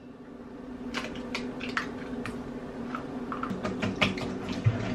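Wire whisk beating an egg into creamed butter and sugar in a stainless steel mixing bowl: irregular clicks and taps of the wires against the bowl, spaced out at first and coming quicker after about three seconds.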